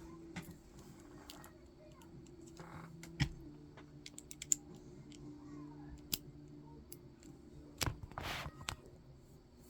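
Scattered light clicks and taps of small plastic LEGO pieces being handled and fitted, a few louder ones a third of the way in and near the end, over a faint steady low hum.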